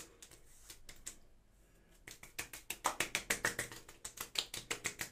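Hands patting aftershave onto a freshly shaved scalp. A few light pats come first, then from about two seconds in a fast, even run of slaps, roughly seven a second.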